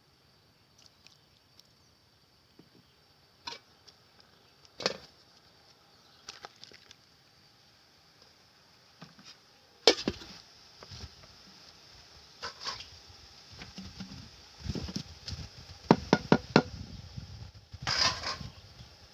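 Irregular knocks and taps of food preparation, with a quick run of sharp knocks late on.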